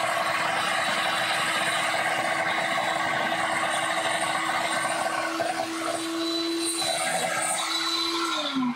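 Mini hobby table saw running with a steady motor whine while a wooden dowel is fed through the blade to shave about 2 mm off its top. Near the end the saw is switched off and the whine falls in pitch as the blade spins down.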